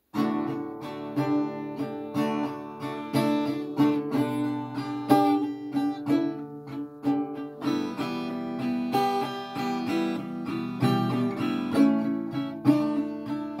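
Acoustic guitar strummed in a repeating chord pattern, starting abruptly from silence.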